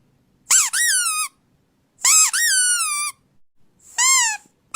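A squeaky toy squeezed three times, each squeak high-pitched and quickly rising then falling in pitch. The first two last about a second each; the last is shorter.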